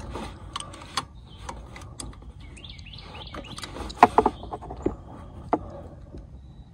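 Metal clicks and clinks of a small open-end wrench on a carburetor mounting nut as it is tightened, with a quick cluster of clicks about four seconds in. Birds chirp in the background.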